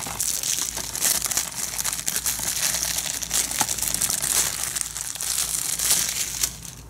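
Plastic shrink-wrap being peeled and torn off a DVD case: a continuous crinkling and crackling of thin film, with small sharp crackles throughout.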